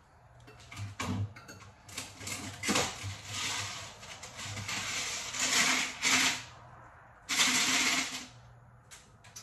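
Ice clattering as it is scooped out of a freezer into a plastic cup: three rattling bursts of about a second each, after a few light knocks of handling.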